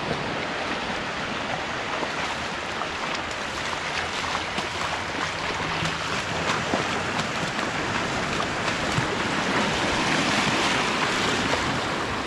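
Small waves washing in over a flat sandy beach, a steady rush of surf and foam, with light splashing from feet wading through the shallow water.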